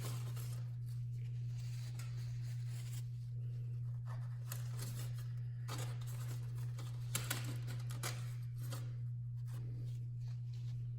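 Paper towel wiping the oil filter mounting surface: scattered light rustles and rubs, a little sharper about seven seconds in, over a steady low hum.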